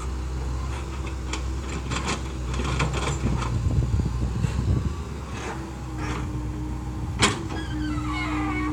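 Komatsu PC70-8 excavator's diesel engine running steadily, with repeated metal clanks and knocks and a sharp bang about seven seconds in. A steady whine joins the engine about halfway through.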